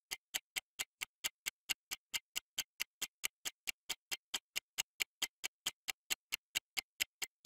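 Countdown-timer ticking sound effect: a steady run of short, even clock ticks, about four a second.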